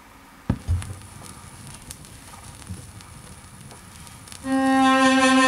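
Vinyl record on a turntable: two soft handling thumps about half a second in and faint crackle, then about four and a half seconds in the stylus is on the record and it plays a steady held note, the loudest sound.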